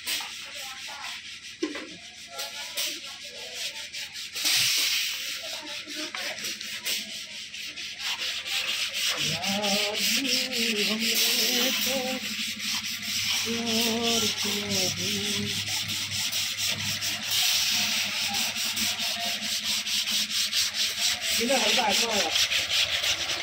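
Continuous rapid rubbing and scraping, a dense stream of fine scratchy strokes like sanding, with faint wavering pitched sounds in the middle stretch and again near the end.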